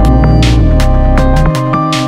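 Background electronic music with held synth tones and a steady beat; a deep bass note sounds for the first second and a half, then drops away.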